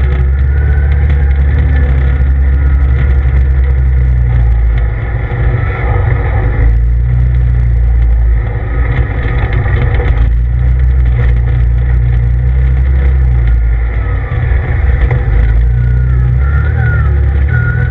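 CF Moto ZForce 800EX side-by-side's 800cc V-twin engine running under load on a dirt trail, heard from the driver's seat, easing off and picking up again a few times.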